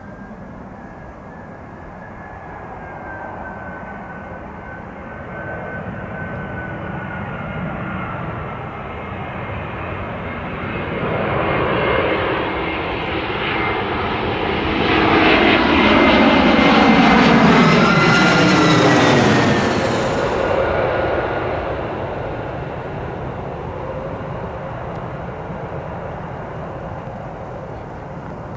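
Airbus A320-family jet airliner passing low overhead on final approach with its gear down: engine noise and a steady high whine build to a peak just past the middle, sweep down in pitch as it goes over, then fade as it flies away toward the runway.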